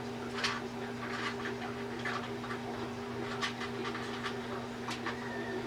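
Scattered small clicks and rustles of hand work on wiring with small tools and connectors, over a steady low hum.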